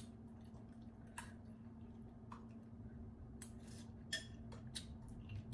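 Quiet eating sounds: scattered short wet clicks and smacks of chewing, with a few light clinks of a metal spoon against a glass bowl, over a steady low hum.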